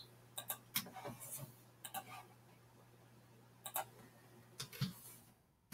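Faint clicking of a computer mouse and keyboard, about ten scattered clicks, over a low steady hum that fades out near the end.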